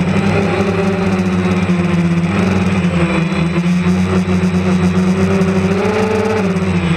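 DJI Phantom quadcopter's motors and propellers buzzing steadily in flight, heard from the camera on board. The pitch shifts slightly with throttle, rising about six seconds in and dropping back near the end.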